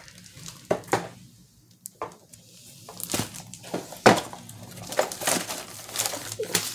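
Plastic wrapping crinkling and rustling as a rolled diamond-painting canvas is handled and lifted out of its box, with scattered light knocks. A brief lull about a second and a half in, then busier crinkling from about three seconds in.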